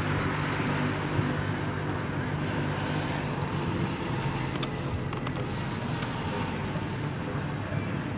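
Car engine and road noise heard from inside the cabin while driving slowly: a steady low hum, with a few faint clicks about five seconds in.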